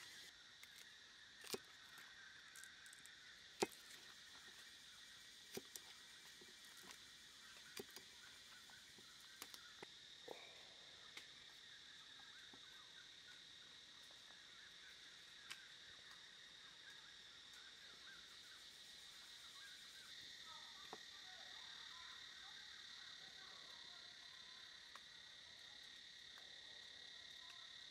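Steady high-pitched insect chorus trilling at two pitches, growing a little louder near the end. Scattered light clicks and taps sound over it, the sharpest about four seconds in.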